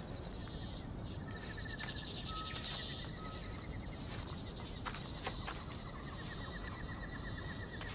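Night ambience of insects chirping in rapid trills, one train after another, over a steady background hiss, with a few faint clicks.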